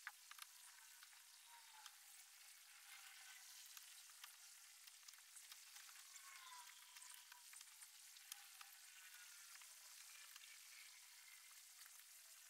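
Near silence: a faint steady hiss with a few light clicks.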